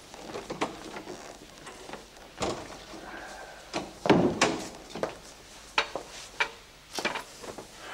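A door closing about four seconds in, amid scattered footsteps and knocks on a hard floor.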